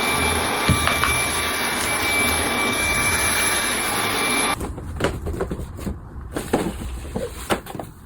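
Steady whirring of a motor-driven appliance with a thin high whine over it, cutting off abruptly about four and a half seconds in. Quieter scattered light knocks and rustles follow.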